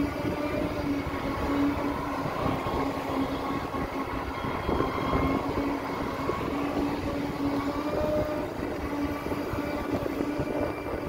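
Segway personal transporter running along a concrete path, its drive motors and gearbox giving a steady whine over a low rolling rumble.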